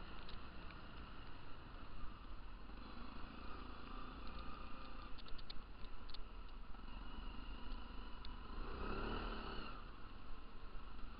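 Stels ATV 300 quad bike engine running as it drives along a snowy track, with a louder swell in the engine about nine seconds in and a few faint rattles.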